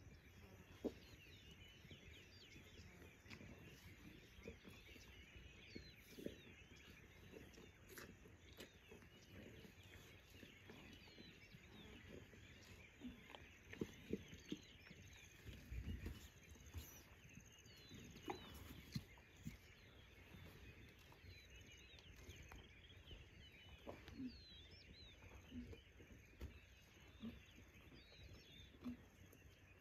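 Faint ambience of many small birds chirping and twittering, with scattered short low sounds and a dull thump about sixteen seconds in.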